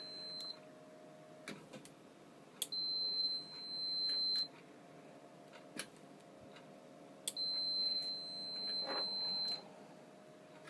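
Multimeter continuity beeper giving a steady high-pitched beep twice, each lasting about two seconds, signalling that a relay's contacts are closed as power to its coil is switched on and off. Light clicks come between and at the start of the beeps.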